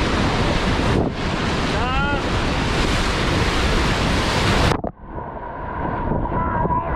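Rushing whitewater of a big river rapid, with wind buffeting the microphone as a raft runs through the waves. A short shout is heard about two seconds in. Near five seconds in the sound suddenly goes muffled and dull as spray washes over the camera.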